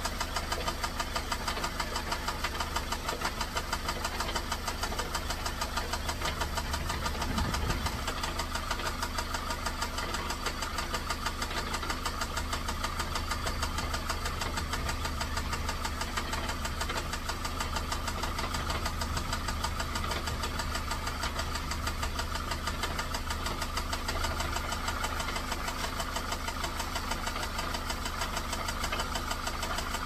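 Ford Focus hatchback's engine idling with a steady, rhythmic knock from the bottom end, loudest nearest the driver's side. The owner takes it for rod knock.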